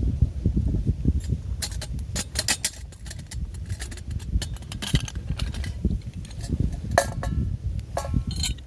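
Metal camp cookware being handled: a run of clinks and clatters, two of them ringing briefly near the end, over a steady low rumble of wind on the microphone.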